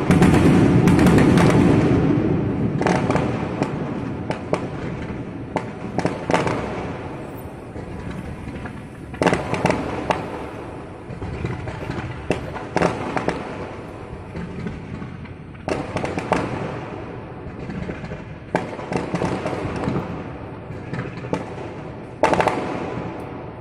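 Aerial fireworks bursting: a dense, loud barrage of bangs at the start that fades over a few seconds, then separate booms every few seconds with smaller crackles between them.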